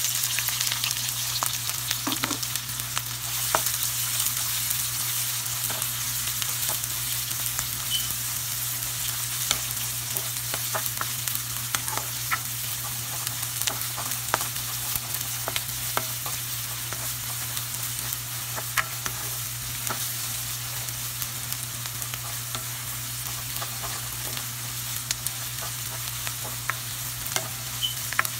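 Chopped onion hitting hot oil with cumin seeds in a nonstick pan: the sizzle starts suddenly at the start and carries on as steady frying, with the clicks and scrapes of a wooden spatula stirring the onion.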